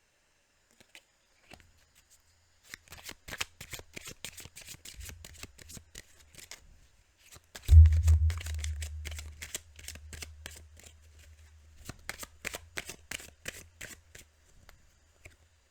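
A deck of Kipper cards being shuffled by hand: a long run of quick papery clicks, with a low thump about halfway through.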